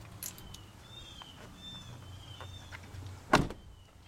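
A pickup truck's rear crew-cab door being shut with a single loud thud about three seconds in. Short bird chirps and a faint low hum run underneath.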